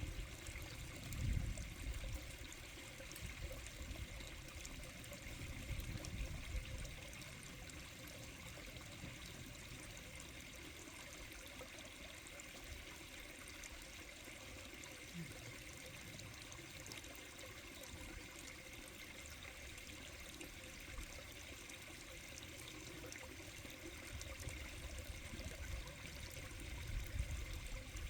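Mountain stream in a winter valley, water flowing and trickling steadily over rocks, with low rumbles near the start and near the end.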